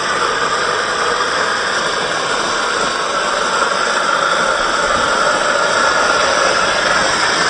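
Brushed electric motor and gear drivetrain of an Axial SCX10 II 1:10 scale RC crawler whining steadily as the truck crawls slowly over gravel.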